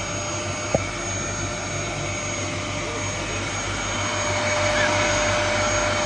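Canister vacuum cleaner running with a steady hum and hiss. A single sharp click comes about a second in.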